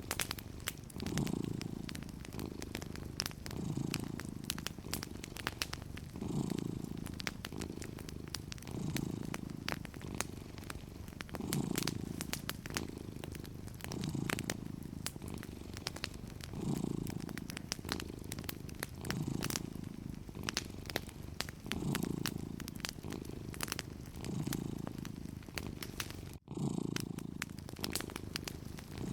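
Domestic cat purring steadily, the purr swelling and fading with each breath about every two and a half seconds, over the soft irregular crackle of a fireplace. The sound cuts out for a split second near the end.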